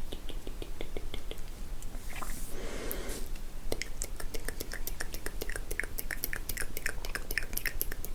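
Close-up ASMR mouth sounds: wet tongue and lip clicks and smacks, with a short breathy sound about two seconds in, then a fast, dense run of clicks in the second half.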